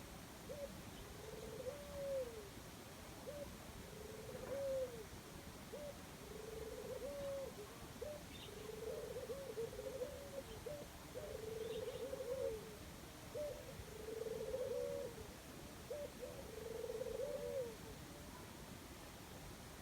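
A dove cooing in a low, repeated phrase: a short note followed by a longer coo of about a second, about every two seconds, stopping near the end.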